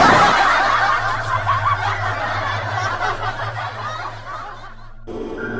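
Laughter, snickering and chuckling, that fades away over about four and a half seconds; ambient music with steady held tones starts near the end.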